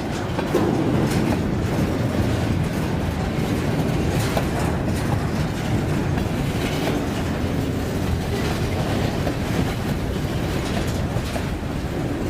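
Freight train cars rolling past on the rails: a steady rumble of steel wheels with scattered clicks as they cross rail joints.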